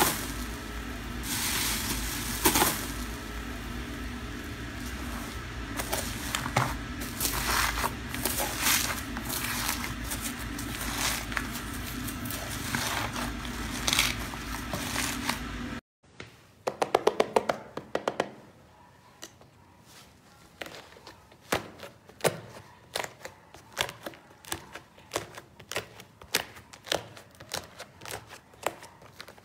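Slime being squished and played with by hand, in two clips. First come irregular squishing and scraping sounds over a steady background hum. After a sudden cut about halfway through, a quieter run of many sharp little clicks and pops follows, typical of clicky, crunchy slime being pressed and poked.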